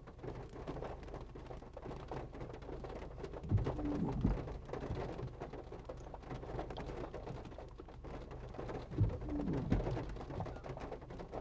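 A bird cooing low, a short call heard twice about five seconds apart, over a steady low hum.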